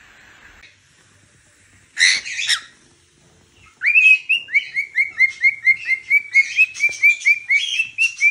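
Cockatiel chirping in a fast, even series of short rising notes, about four or five a second, starting a little under four seconds in. A brief harsh burst comes about two seconds in.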